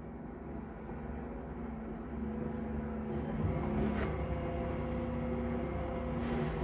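Bin lorry engine running as the truck edges forward, a steady low drone. A short hiss comes about four seconds in and a longer one near the end.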